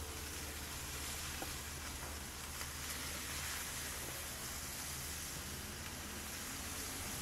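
Chicken wings sizzling on a barbecue grill grate, a steady hiss.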